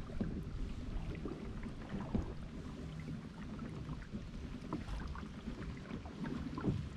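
Hobie Compass kayak moving over calm water: a low rumble with scattered small knocks and clicks from the hull.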